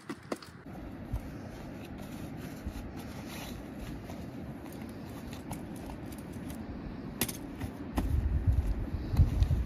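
Wind buffeting the microphone as a steady low rumble, with a few light clicks and rustles from a folding camp chair being handled. The rumble turns gusty and stronger about eight seconds in.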